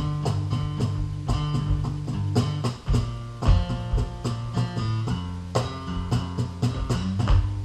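Acoustic guitar strummed in a steady rhythm, with regular hand-struck cajón hits keeping the beat.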